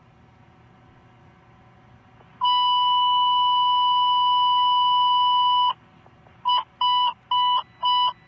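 Emergency dispatch alert tone: one steady high beep held for about three seconds, then a run of short beeps on the same pitch about two a second. This is the alert that comes before a dispatcher's call to a fire or EMS crew.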